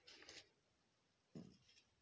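Near silence: faint rustling in the first half second, then a single soft thump about one and a half seconds in.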